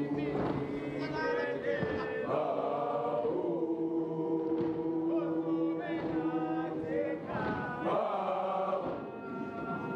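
A group of schoolboys singing a gwijo, a South African a cappella group chant, in unaccompanied harmony. A long chord is held through the middle.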